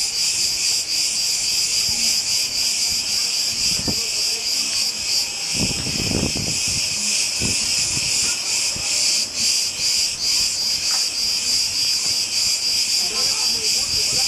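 Chorus of cicadas singing: a continuous, high-pitched buzz that pulses rapidly, with no break.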